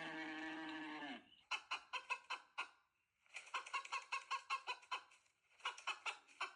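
Chickens: a long held call that ends about a second in, then three runs of rapid clucking and cackling.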